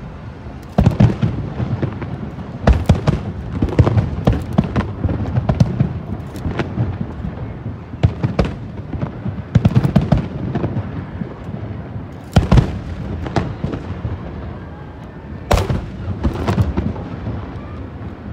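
Aerial firework shells bursting in a rapid, uneven series of booms and crackles, with the loudest booms about a second in and again around the middle.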